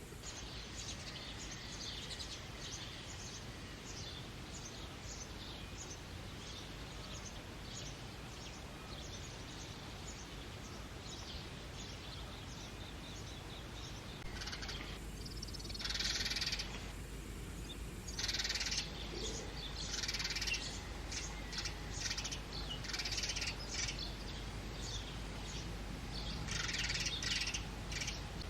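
House sparrows chirping: a steady run of short, high chirps that grows louder and denser about halfway through.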